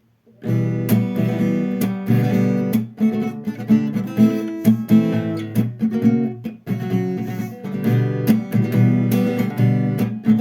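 Acoustic guitar strummed in a down-up-down pattern, playing the full intro chord sequence: Em, G, D and Dsus4, then Am and Bm. It starts about half a second in.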